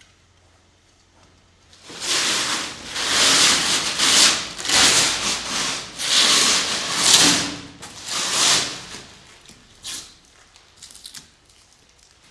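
Rough rubbing or scraping strokes, about six loud surges over some seven seconds, followed by a few light knocks.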